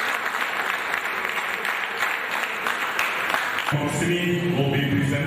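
Audience applauding steadily in a hall. The applause cuts off abruptly about three and a half seconds in, at an edit.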